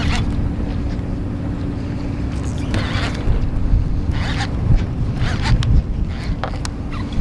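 Conventional fishing reel being cranked in short bursts of winding, about four times, while line is brought in on a hooked fish with the rod bent hard. Wind rumble on the microphone runs underneath.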